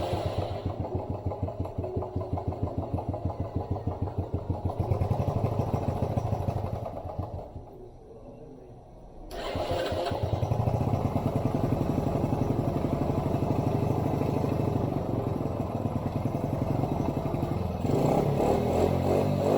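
Honda ATC70 trike's small four-stroke single-cylinder engine running with a fast, even firing pulse. It dies down for a couple of seconds midway, then runs steadily again, with a change in its note near the end.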